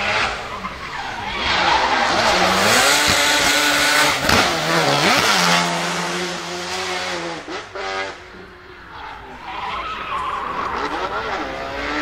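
Twin-turbo four-rotor rotary engine of a Nissan Silvia S15 revving hard while the car drifts, its pitch climbing and falling with throttle and gear changes, over tyre squeal. It is loudest in the first half, dies away about eight seconds in, then rises again near the end.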